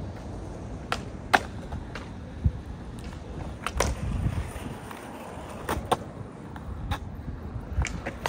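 Skateboards on concrete: wheels rolling with a low rumble, and about six sharp clacks of boards hitting the ground spread through it, the loudest about a second and a half in.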